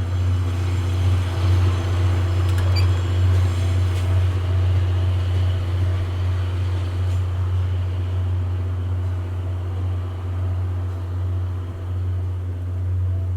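A vehicle engine running steadily with a low drone that holds at an even level throughout, with a couple of faint clicks about three and four seconds in.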